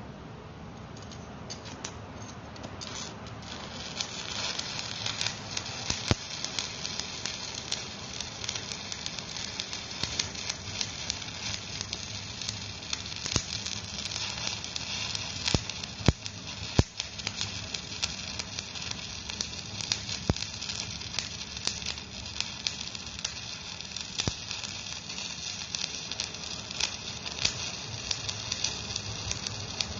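Electric stick-welding arc crackling and sizzling steadily as a bead is laid on an excavator bucket adapter, with frequent sharp pops. The crackle builds up over the first few seconds.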